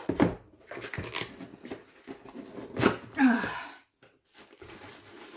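Cardboard parcel box being torn open by hand: several sharp rips, the loudest about three seconds in, with rustling and scraping between them.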